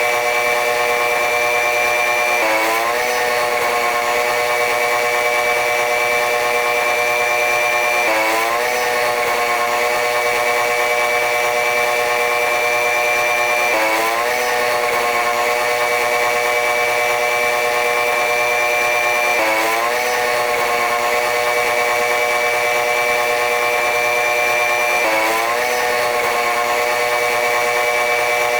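Running noise of a diesel-hauled passenger train in motion: a steady, machine-like hum made of several held tones, with a short dip and rise in pitch that repeats about every five and a half seconds.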